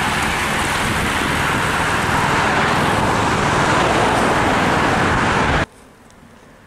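Cyclists of a race bunch and the team cars following them pass close by, a loud, steady rush of tyre and engine noise. It cuts off abruptly about five and a half seconds in, leaving only a faint hiss of distant road ambience.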